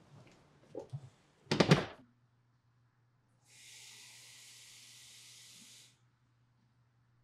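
A single loud thump, then a kitchen faucet runs water into a drinking glass for about two and a half seconds and shuts off abruptly.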